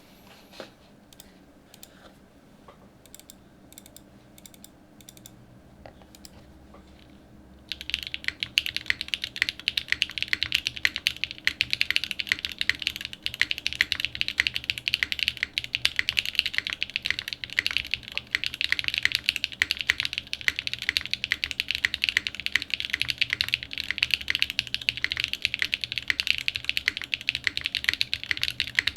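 Cloudline mechanical keyboard with a top-mounted polypropylene plate, factory-lubed SWK Yang switches and JTK Ride keycaps. It is typed on in fast, continuous clacking from about eight seconds in, after a few faint isolated key clicks.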